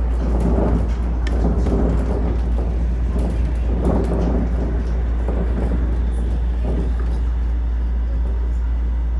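Cabin noise inside a Shonan Monorail suspended monorail car: a steady low rumble, with mid-range swells that rise and fall, strongest in the first half.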